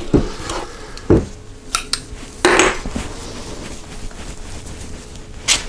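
Metal ice cream scoop knocking and scraping against a stainless steel mixing bowl while cookie dough is scooped out. It gives a few sharp clinks in the first two seconds and a short scrape a little before the middle. Then it is quieter until one more clink near the end.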